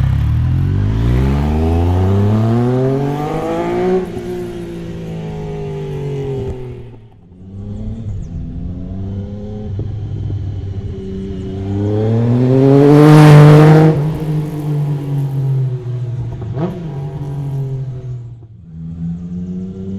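Triumph Speed Triple 1050's inline three-cylinder engine through an unbaffled Arrow titanium full exhaust, revving up and dropping back: the pitch rises over the first few seconds, falls away to a low point about seven seconds in, then climbs to its loudest around thirteen seconds before dropping off again.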